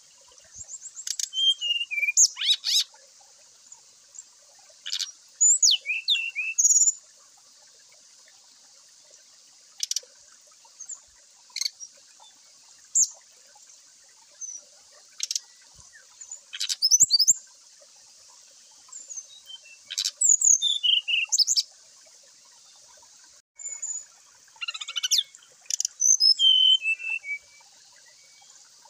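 Brown-chested jungle flycatcher (sikatan rimba dada coklat) singing in short bursts of fast, high whistled sweeps and trills, with pauses of a few seconds between phrases, over a steady high hiss.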